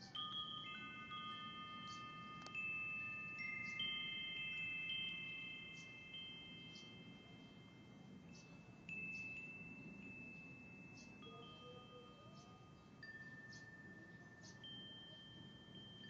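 Tubular wind chime with hollow metal tubes, struck at irregular moments by its wooden clapper, each tube ringing on for several seconds so that a few clear notes overlap. A cluster of strikes comes right at the start, with fewer and softer ones later.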